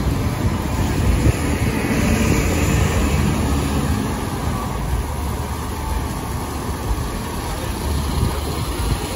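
City street traffic: a steady din of car and bus engines running and idling, with a heavy low rumble, swelling a little in the first few seconds as vehicles pass.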